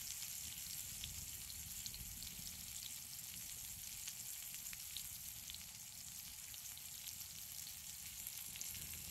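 Chicken sizzling on a grill over a campfire: a faint, steady hiss with scattered small pops and crackles.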